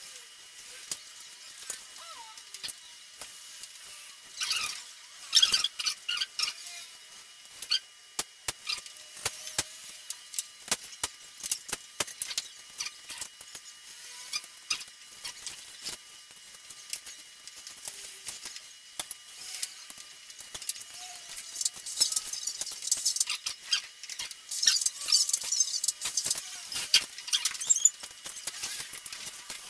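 Hand handling of a DJI Phantom 4's plastic shell and frame parts during repair: irregular clicks, taps and scraping of plastic, with small squeaks, busiest in the last third.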